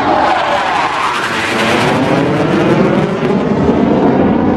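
Military jet aircraft flying past overhead during an aerobatic display. Its engine noise is loud and steady, with a sweeping whoosh that rises and falls as it goes over.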